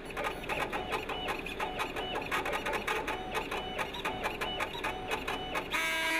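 Pen plotter drawing lines: rapid stepper-motor ticking and clicking, with short whining tones that start and stop as the pen head moves. A held electronic tone comes in near the end.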